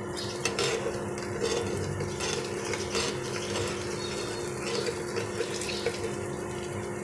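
Egg and chopped vegetables frying in ghee and mustard oil in a frying pan: steady sizzling with a spatula scraping and tapping against the pan, over a steady low hum.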